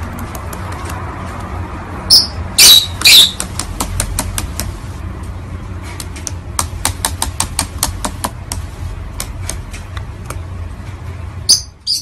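Masked lovebird stepping and bobbing on a laptop keyboard, the plastic keys clicking under it in quick runs. Three loud, shrill squawks come about two to three seconds in, and another just before the end.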